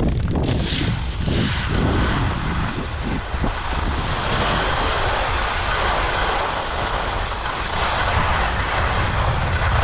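Skis scraping and hissing over the hard, icy snow of a race course while sideslipping down it. The scrape is uneven at first, then settles into a steadier, stronger hiss after about four seconds.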